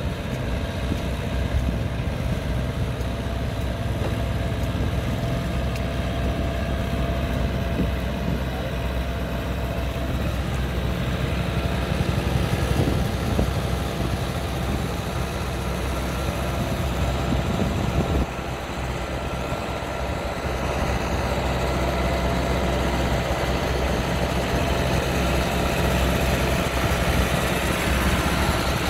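Ford farm tractor engine running steadily under load as it hauls a heavy cassava trailer up a slope. The engine grows a little louder in the last few seconds as the tractor comes closer.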